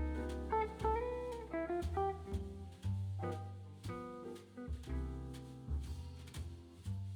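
Background music: a relaxed jazzy tune with plucked guitar and a bass line.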